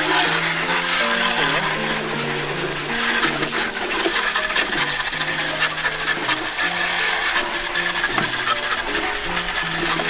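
Water from a hose spray gun jetting onto a plastic air-conditioner blower fan: a steady hiss and splatter as the dust is rinsed off. Background music plays over it.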